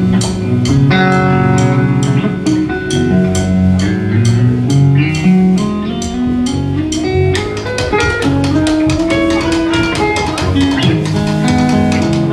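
Live rock band playing: amplified electric guitar lead with drum kit keeping a steady beat and bass underneath. The guitar plays runs of notes that step down and then climb back up.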